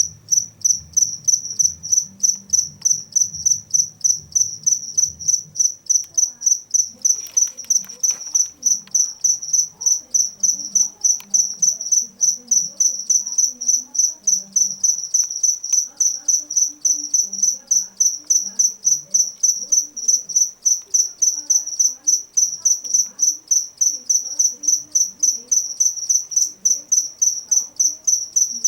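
A cricket chirping: a steady run of short, high-pitched chirps, about three a second, made by the male rubbing his wings together.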